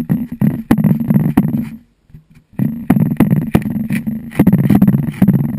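A kitten's tongue and fur licking and rubbing directly on a GoPro camera's lens housing: close, loud scraping and clicking in two bursts, with a short break about two seconds in.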